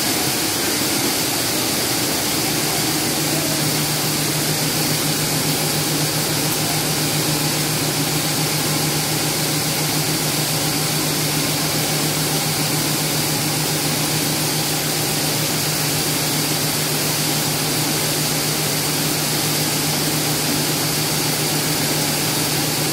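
Seed-processing machine running steadily: a continuous mechanical whirr and hiss, with a low hum that grows steadier a couple of seconds in.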